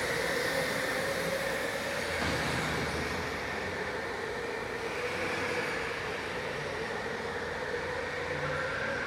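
Electric racing go-karts running on the track, their motors giving a steady whine over tyre and track noise.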